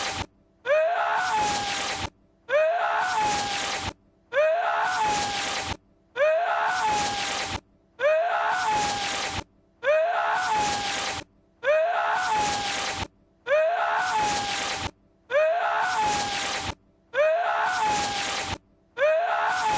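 Lord Voldemort's short, strained vocal cry, which sounds like a sneeze, looped over and over. It repeats about every two seconds with a brief silence between each repeat.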